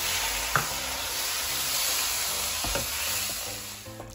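Blended tomato sizzling in hot oil with fried onions and masala in a nonstick frying pan as it is stirred in with a spatula. The spatula knocks lightly against the pan twice, about half a second in and near three seconds, and the sizzle fades a little near the end.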